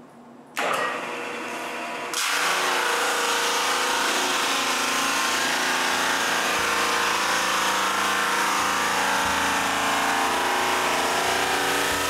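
Drum sander switched on about half a second in, then running louder from about two seconds in as a board feeds under its sanding drum: a steady motor whine over a hiss.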